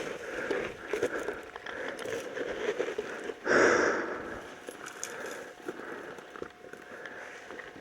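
Footsteps crunching and rustling through dry leaves and brush, with a louder rustle about three and a half seconds in.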